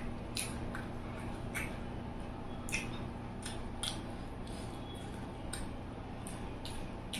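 Eating sounds: irregular crisp clicks and smacks of chewing and handling food, about one or two a second, over a steady low hum.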